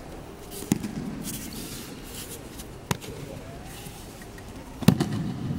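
Aikido breakfalls on mats: three sharp slaps of bodies and arms hitting the tatami about two seconds apart, the first and last with a heavier thud.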